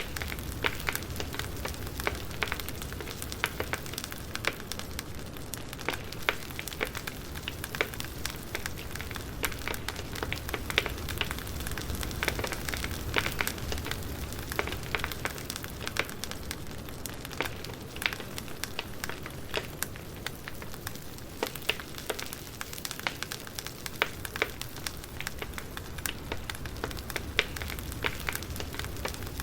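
Campfire burning, a steady low rumble and hiss of flames with frequent irregular crackles and pops from the burning wood.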